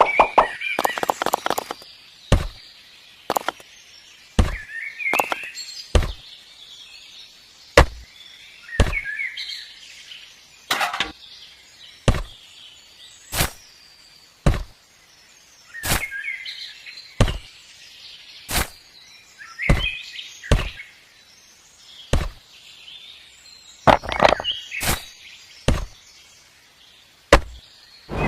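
Repeated sharp knocks or chopping strikes, about one a second, with a quick run of them just after the start and again near the end; birds chirp in the gaps.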